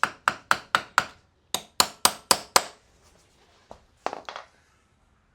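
Hammer strikes on metal, about four a second, in two runs of about five blows with a short pause between, followed by a lighter knock and some scraping of metal parts.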